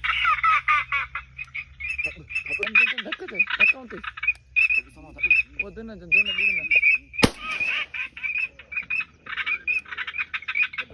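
Ducks quacking in short runs, over a dense chorus of rapid high chirping calls. A single sharp crack cuts through about seven seconds in.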